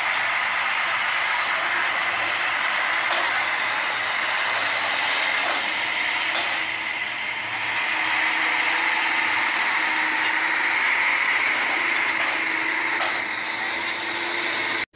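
Heavy truck engine running steadily as a truck tractor with a loaded lowboy trailer moves across a ferry ramp, under a constant hiss.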